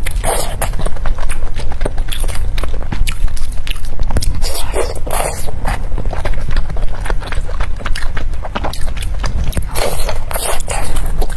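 Close-miked eating sounds: wet chewing and smacking with many small clicks and crackles as braised pork belly is eaten. There are louder bites at the start, around five seconds in, and near the end, when a whole braised egg is bitten.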